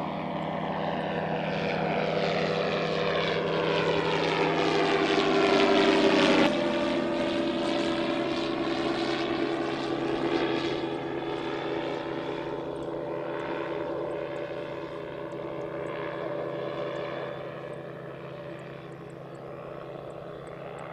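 MQ-1 Predator drone's Rotax 914 four-cylinder piston engine and pusher propeller passing overhead. It grows louder as the drone approaches, drops sharply in pitch about six and a half seconds in as it passes, then fades as it flies away.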